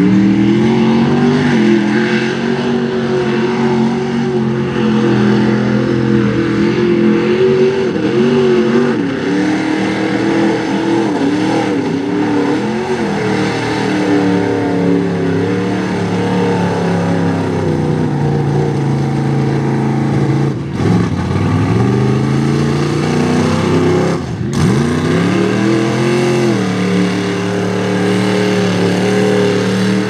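Modified off-road truck engines revving hard as they push through a mud bog, the pitch rising and falling with the throttle. The sound dips sharply twice in the second half.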